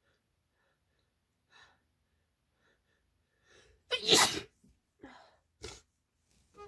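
A woman sneezing from a head cold: a few faint breaths build up, then one hard, loud sneeze about four seconds in, followed by two shorter sharp bursts.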